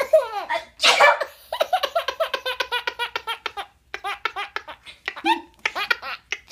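A girl's sneeze about a second in, followed by a baby's belly laughter: long runs of quick, rhythmic laughing bursts in three bouts.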